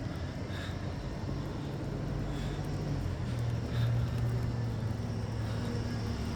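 Low, steady engine rumble of a motor vehicle, swelling about four seconds in.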